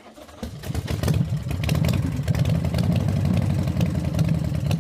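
A motor vehicle engine running, building up over about the first second and then holding a steady, rough, low sound.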